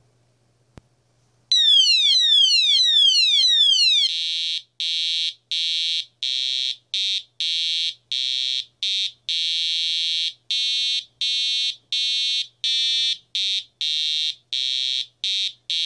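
Piezo buzzer of a door alarm going off as the magnet is pulled away from its reed switch. After a faint click about a second in, there is a string of quick falling sweeps for about two and a half seconds, then very loud, choppy beeping on one high tone, the beeps of uneven length.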